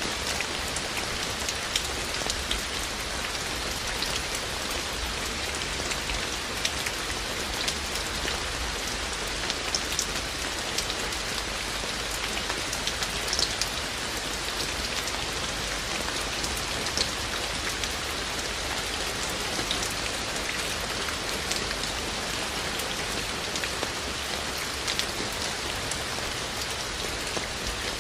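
Steady rain falling: a dense, even hiss with frequent sharp ticks of single raindrops.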